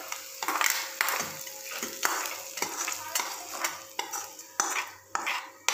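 Steel spoon scraping and clinking against a small kadai, about three strokes a second, as sautéed onions in hot oil are stirred and scraped out of the pan, with light sizzling under it.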